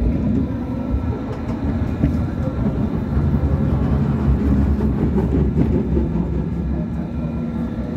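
Hong Kong Light Rail Phase I car running along the track, heard from inside the car: a steady rumble of wheels and running gear, with faint steady whine tones above it.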